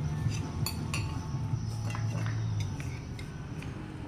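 Cutlery clinking lightly against bowls during eating: a few scattered, separate clicks over a steady low hum.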